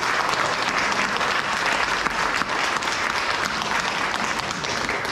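Congregation applauding: many people clapping together in a steady, dense patter.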